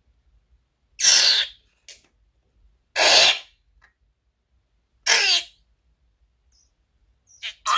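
Glue squirting out through the neck of a squeezed rubber balloon in three squelching bursts about two seconds apart, each about half a second long, then two shorter ones near the end.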